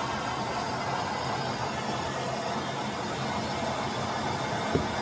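Hot-air heat gun running steadily, its fan blowing with a low hum while it melts plastic into a body crack. A small click near the end.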